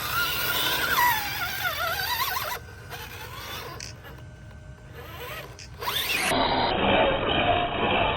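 Traxxas TRX-4 Sport RC crawler's electric motor and gears whining, the pitch wavering up and down with the throttle. The sound drops away suddenly about two and a half seconds in and comes back as a duller, muffled running sound near six seconds.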